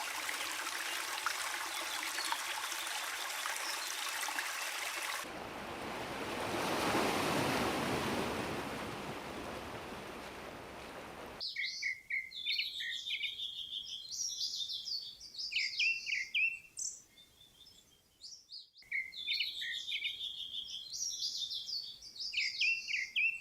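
A steady hiss of water, swelling to a louder rush of running water for a few seconds, then cutting abruptly to songbirds chirping and trilling in quick, high, sweeping notes. The birdsong breaks off briefly and starts again.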